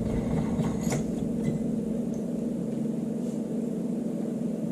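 A steady low hum with a constant pitch, and one light click about a second in.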